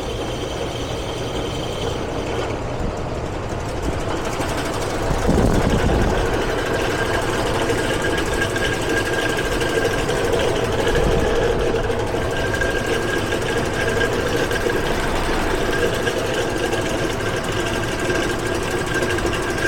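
Air conditioner condenser fan running with a steady knocking rattle, louder from about five seconds in. The fan motor's shaft is loose and the blade has come off it before: a failing fan motor.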